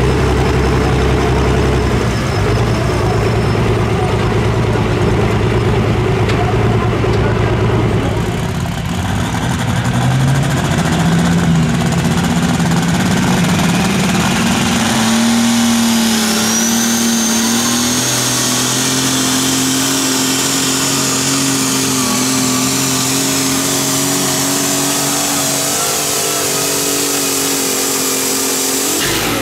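Pulling vehicle's engine under load on a pull: running steadily for several seconds, then revving up from about ten seconds in and holding high revs for the rest of the run. A high whine rises over it just past the middle and then slowly falls.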